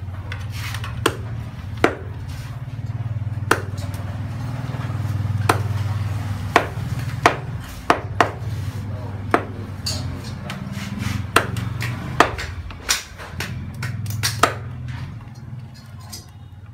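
Meat cleaver chopping water snake into pieces on a round wooden chopping block: sharp, irregular chops about once a second over a steady low rumble. The chopping stops near the end.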